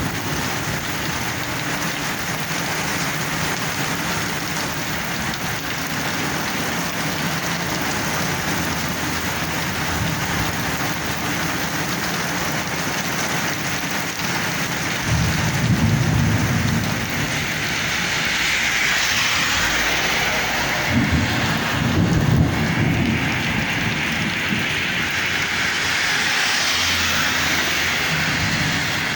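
Heavy rain pouring steadily, with two low rumbles of thunder, one about halfway through and one about two-thirds in.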